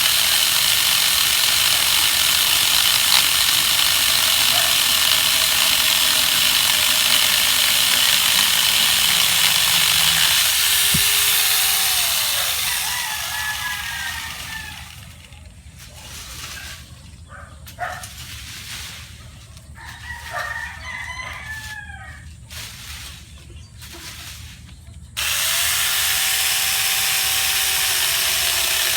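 A chainsaw running steadily, fading out about halfway through. Roosters crow several times in the quieter stretch. The chainsaw comes back suddenly near the end, with another rooster crowing over it.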